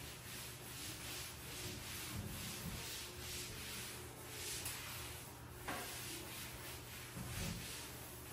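Faint scrubbing: quick rubbing strokes over a surface, about three a second.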